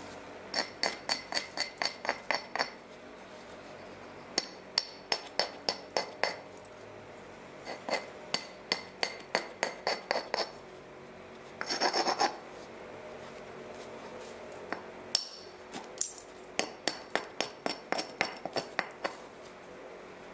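Flint being worked with knapping tools: runs of quick, ringing clicks, about four a second, as a tool is worked against the flint's edge, with a short rasping scrape about twelve seconds in.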